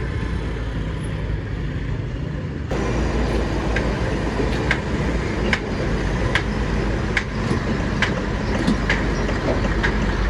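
Steady low vehicle rumble; about three seconds in it jumps louder and sharp light knocks begin, coming roughly every second.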